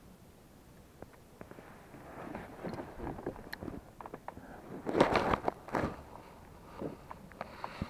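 Handling noise in a small boat: scattered light clicks and knocks, with a louder cluster of knocks and rustling about five seconds in.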